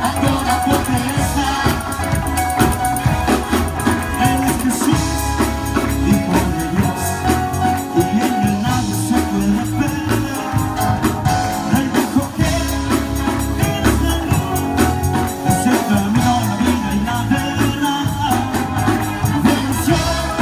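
Live worship band playing a song with a steady beat: singers over a Yamaha Motif keyboard, electric bass and drums.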